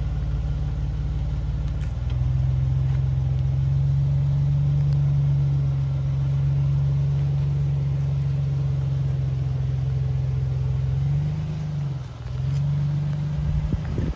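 Jeep Wrangler JK's engine running at low, steady revs as it crawls through a deep rut; it grows louder about two seconds in, and the revs dip briefly and come back near the end.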